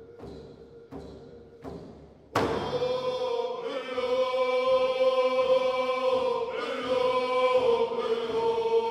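Music: a steady drum beat under a held tone, then about two and a half seconds in, loud sustained chanted singing comes in and carries on.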